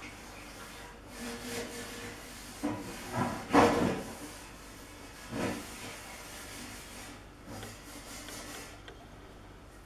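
Kitchen knife cutting through a roll of yeast dough on a wooden table: a few short scraping cuts, the loudest about three and a half seconds in.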